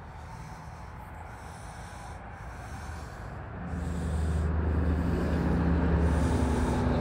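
Low, steady diesel engine rumble from the approaching freight train's lead CSX ES40DC locomotive, which becomes markedly louder about three and a half seconds in.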